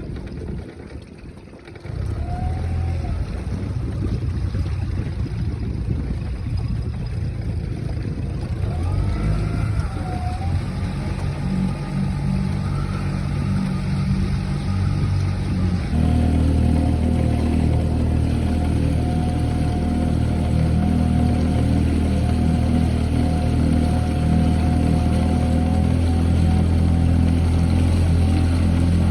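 Boat motor running steadily, starting up about two seconds in, then throttled up about halfway through and holding at the higher speed.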